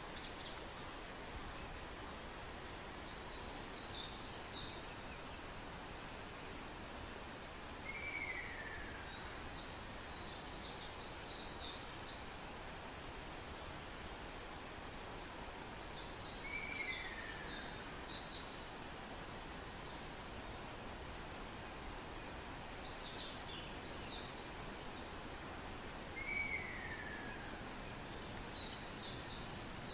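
Ruddy kingfisher calling in forest: a short falling call, repeated three times about nine seconds apart. Between these calls, another small bird sings repeated quick, high chattering phrases over a steady background hiss.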